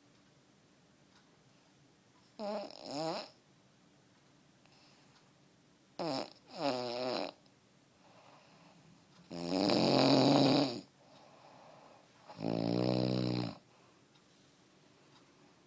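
A man snoring: four loud snores a few seconds apart. The first two come in two parts and waver in pitch, the third is the longest and loudest, and the last holds one even pitch.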